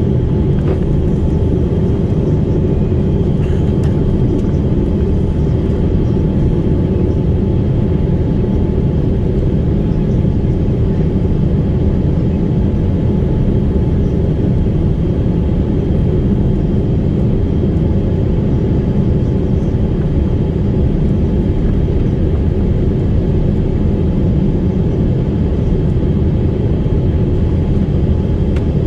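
Airliner cabin noise: a steady, loud, low rumble of engines and airflow, with a faint steady hum above it, heard from inside the passenger cabin.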